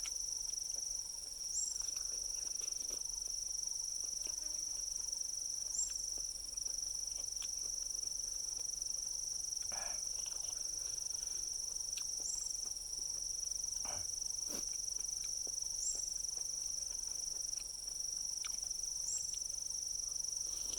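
Steady high-pitched drone of insects, with a short rising chirp every few seconds and a few soft clicks and knocks.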